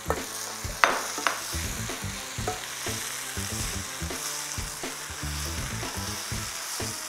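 Chilli paste and stink beans (petai) sizzling in oil in a non-stick wok, stirred with a plastic spatula. The spatula scrapes and knocks against the pan a few times in the first second and a half.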